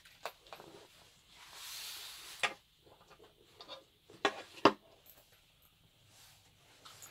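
Handling noise from rubber gas masks, their hoses and canvas bag: a brief rustle, then a few sharp clicks and knocks of the metal eyepiece rims and fittings, the loudest two about half a second apart past the middle.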